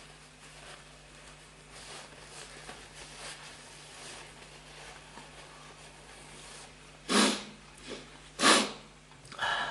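A man sniffling, with a tissue at his nose: soft sniffles at first, then two loud, sharp sniffs about seven and eight and a half seconds in, a smaller one between them, and another near the end.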